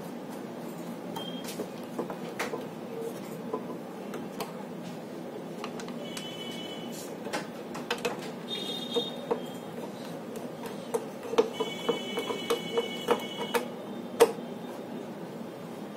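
Clicks and knocks of a battery and its metal bracket being fitted back into a platform scale's indicator, with short high squeaks. The clicks come thicker and louder in the last few seconds, the loudest a sharp knock near the end.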